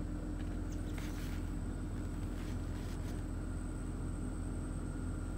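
Parked car running, a steady low hum with a thin, faint high whine over it, and a few faint clicks about a second in and again around two and a half to three seconds in.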